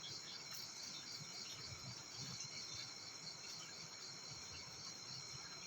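A steady high-pitched chorus of insects chirping, with a rapid, even pulsing.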